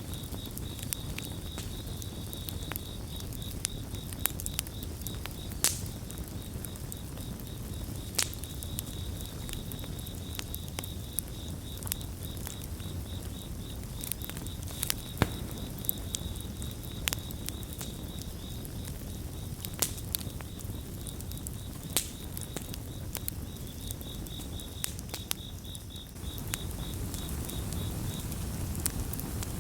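Campfire burning with a steady low rumble and sharp crackles and pops scattered irregularly throughout. A cricket chirps in a fast, even pulsing trill at one high pitch, then stops shortly before the end.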